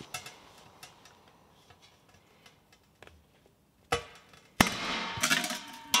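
Scattered light clicks, then a sharp clank about four and a half seconds in, followed by a second of loud scraping and rattling as the lid of a stainless-steel vacuum chamber is lifted off.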